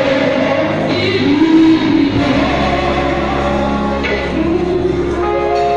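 Live gospel music: voices singing in held, sliding lines over a band.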